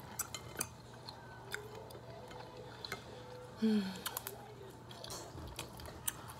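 Close-up eating sounds: chewing and lip smacks with scattered small clicks as crab legs are picked apart by hand, and one louder brief sound with a short hum about three and a half seconds in.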